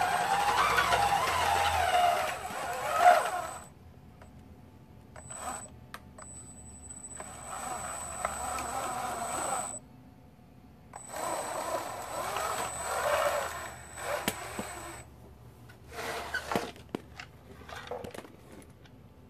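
Electric motor and belt drive of a 3D-printed RC tracked snowcat whining in several bursts of a few seconds as it is throttled, with a few sharp clicks near the end.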